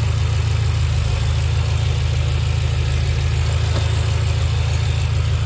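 BMW M5 F10's 4.4-litre twin-turbo V8 idling steadily with newly fitted EU6 fuel injectors and freshly reset adaptation values. It runs smoothly, not rough, and shows no sign of injector trouble.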